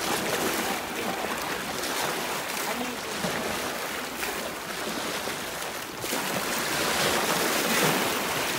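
Shallow sea water sloshing and splashing around the legs of someone wading through it, with small waves lapping; it grows louder about six seconds in.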